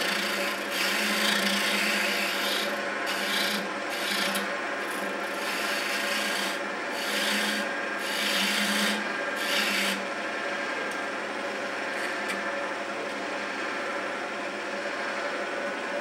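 A turning tool cuts a spindle on a running wood lathe in a series of passes with short breaks between them. About ten seconds in the cutting stops, and only the lathe's steady running hum goes on.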